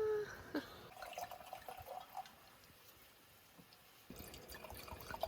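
Small drips and light clicks of liquid and utensils around a pot of nabe hot pot being served, picking up again with a run of small ticks about four seconds in. A short hum of a voice is heard right at the start.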